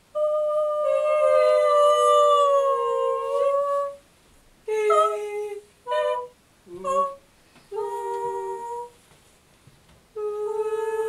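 Two women singing long, wordless held notes together, their two pitches a little apart: one long phrase, then a string of short notes, and another long note starting near the end that slowly falls.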